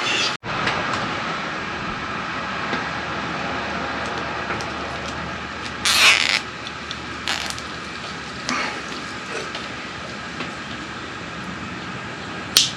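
Hands-on mechanical work on a motorbike's wiring: scattered small clicks and ratchety rattles, with a few short, loud scraping rasps, the loudest about halfway through, over a steady background hum.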